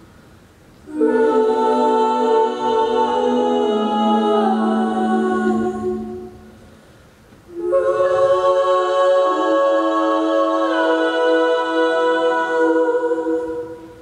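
All-female a cappella group singing long held chords in close harmony. There are two phrases of about five seconds each with a short gap between them, and the notes shift step by step within each chord.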